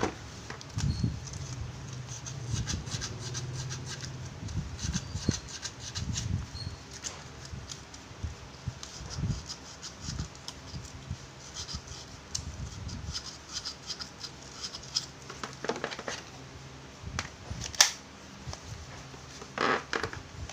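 Handling noise of a cordless impact driver and its hard plastic carry case: irregular clicks, rubbing and knocks of plastic on plastic as the tool is lifted, turned over and its battery pack fitted. A single sharp click near the end. The motor does not run.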